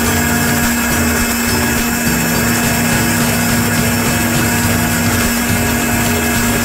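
A small electric motor running steadily: a constant hum under an even hiss, with no change in speed.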